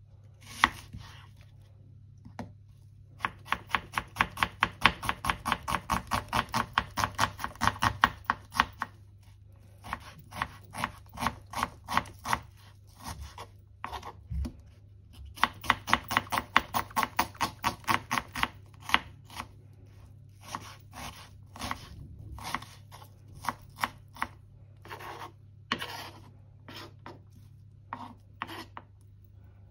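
Knife chopping food on a cutting board in two quick runs of even strokes, about five a second, each lasting several seconds, with slower scattered cuts between and after. A low steady hum runs underneath.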